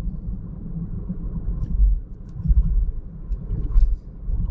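Low, uneven rumble of a car driving along, with road and engine noise heard from the moving car.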